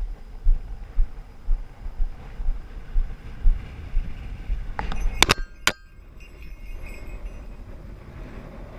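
Footsteps on snow at a walking pace, about two heavy thumps a second, stopping about five seconds in. Just then come a few sharp metallic clinks with a brief ringing after them.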